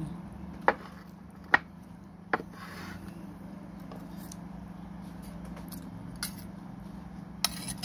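A metal spoon clicking against a ceramic plate: five short, sharp clinks, three in the first two and a half seconds and two more near the end, over a steady low hum.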